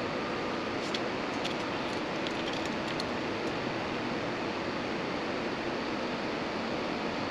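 Steady rushing noise of a workshop air conditioner running, with a few faint light clicks between about one and three and a half seconds in.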